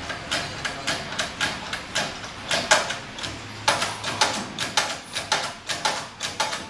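Hand-pumped hydraulic shop press being worked by its long lever, a quick series of sharp metal clicks about three a second, as pressure builds on the ram to press a wheel bearing out of its hub.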